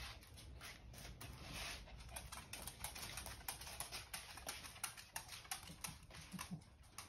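Dog's claws clicking on a laminate floor as it walks: a faint, irregular run of light taps, several a second.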